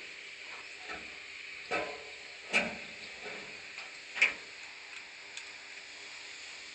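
A few sharp clicks or taps, three of them loud and spaced irregularly over a couple of seconds, with fainter ticks between, over a steady faint hum.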